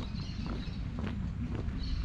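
Footsteps walking at an even pace, about two steps a second, over a steady low rumble.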